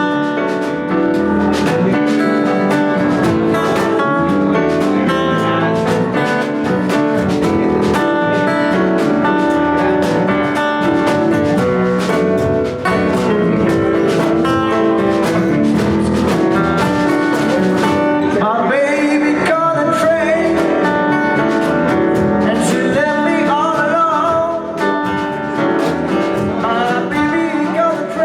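Live band playing a song, guitar and percussion to the fore, with a singer's voice coming in about two-thirds of the way through.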